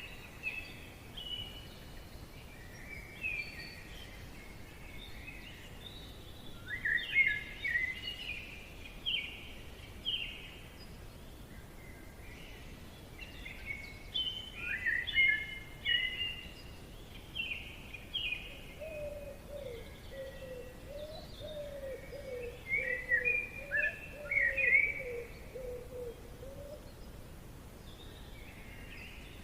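Forest birdsong: several birds chirping and singing in quick, repeated phrases over a steady faint hiss, with a lower wavering call joining in for several seconds past the middle.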